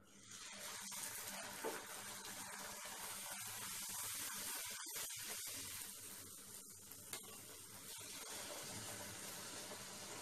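Atta puri deep-frying in hot oil in a steel kadai: the sizzle starts suddenly as the puri goes into the oil and keeps up steadily while it fries and puffs.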